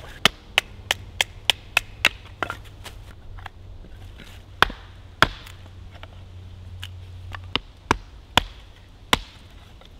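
Hatchet striking wood on a chopping stump, splitting kindling. A quick run of about seven sharp strikes in the first two seconds, then slower, irregular strikes.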